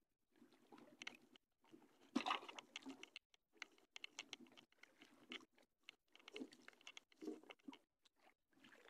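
Faint, irregular clicking and rustling from hands handling the fishing line and a freshly caught small fish in a small wooden outrigger boat.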